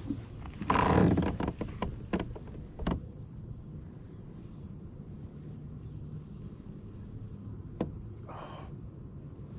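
Steady high-pitched insect chorus, with a short noisy burst about a second in followed by a few sharp clicks and knocks, and another brief burst near the end.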